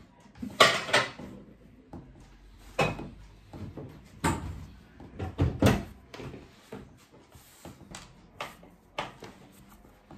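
Hands kneading potato-and-pumpkin gnocchi dough on a floured wooden table: irregular thumps and knocks as the dough is pressed and pushed against the wood. The knocks are heavier in the first six seconds and lighter after.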